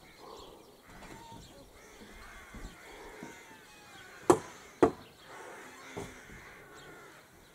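Hammer knocking on the wooden boards of a shower stall under construction: two sharp knocks about half a second apart, then a fainter one about a second later.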